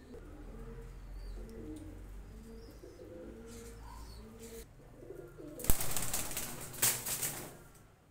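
Domestic pigeons cooing, a repeated low call, then a loud flurry of wing flapping about six seconds in that lasts under two seconds.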